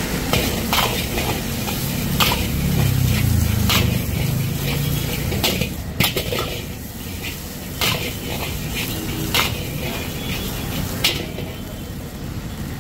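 A long steel ladle clanging and scraping against a large iron wok as a stir-fry is tossed and stirred, with sharp metal strikes every second or two over sizzling and a steady low rumble.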